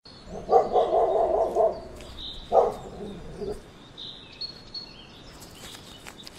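A husky-type puppy snuffling and scratching as it digs its nose and paws into snowy turf, in two loud bursts in the first half, followed by lighter scrabbling. Birds chirp faintly with short repeated high notes.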